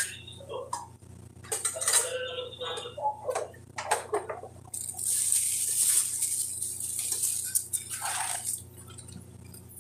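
Metal cooking utensils and pots clinking and clattering, followed by a steady hiss lasting about four seconds.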